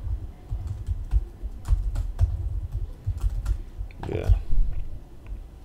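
Typing on a computer keyboard: rapid, irregular keystrokes as a line of HTML code is entered in a text editor. A short vocal sound comes about four seconds in.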